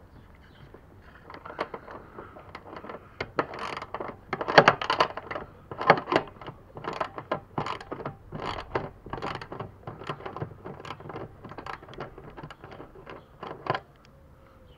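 Socket ratchet wrench clicking in quick repeated strokes as it loosens a rear luggage-rack bolt on a scooter, ending with a sharper click near the end.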